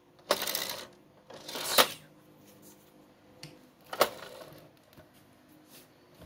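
Toy container trucks being handled and shifted by hand: a couple of short rattling, scraping bursts in the first two seconds, then a sharp click about four seconds in.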